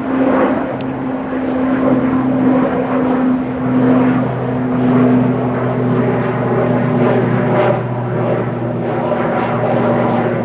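Airliner engines running loud and steady, a rushing noise with a low steady hum under it.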